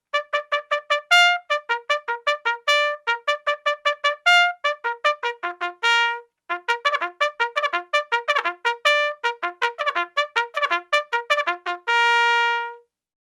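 A bugle playing a fast call of quick, tongued notes in two phrases, with a short break about six seconds in. It ends on one long held note.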